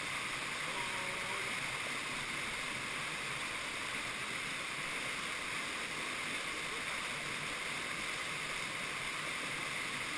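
Steady rushing of a mountain stream pouring down a narrow rock chute into a plunge pool: small cascade white water.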